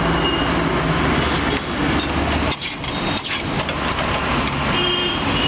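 Motor vehicle engine idling in street traffic, its low rumble dropping away about two and a half seconds in, over a steady hiss.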